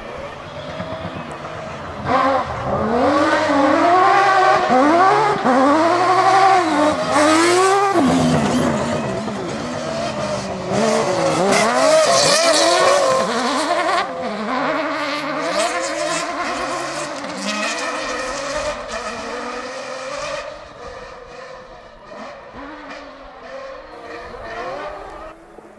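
Rally cars at full throttle on a special stage: engines revving hard, pitch climbing and dropping again with each quick gearchange, and cutting off sharply about eight seconds in as a car goes past. Near the end another car is heard more faintly as it approaches.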